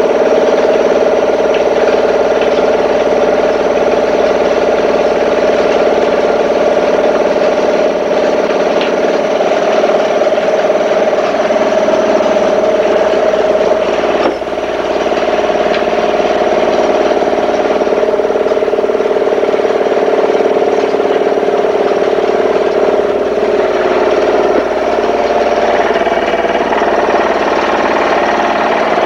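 An engine running steadily at idle, a continuous even hum with a constant pitch, with a brief dip in level about 14 seconds in.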